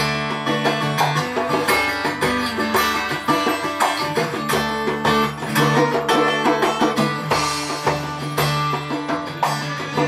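Acoustic guitar strummed steadily in an instrumental break of a live song, with no singing.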